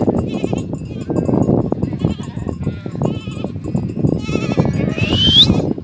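Herd of goats bleating as it moves across pasture, short wavering high bleats every second or two, with wind buffeting the microphone. A loud rising whistle near the end.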